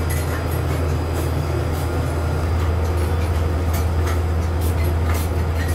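Steady low rumble of a moving vehicle heard from inside, with scattered light clicks and rattles.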